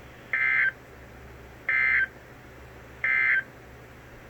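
NOAA Weather Radio sending its digital end-of-message code: three short bursts of buzzy two-tone data, about 1.3 s apart, that close out the tornado watch alert.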